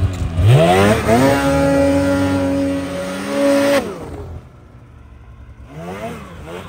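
Snowmobile engine revving hard as the sled is powered up through deep snow. It climbs quickly to high revs, holds there for about two and a half seconds, and drops off about four seconds in. Near the end come a few shorter blips of throttle.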